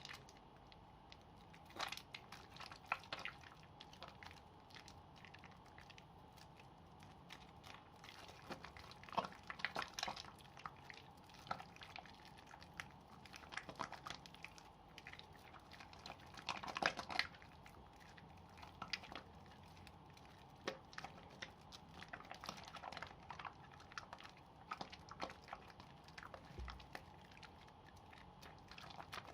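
Wet bar soap being lathered by hand: irregular soft squelches and little crackling clicks, in clusters.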